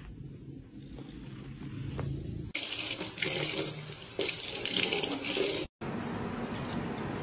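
A kitchen faucet's stream runs into a stainless steel sink as loud, steady splashing. It cuts in sharply about two and a half seconds in and stops abruptly a little before the end. A low rumble comes before it, and a quieter, steady trickle of a pet water fountain follows.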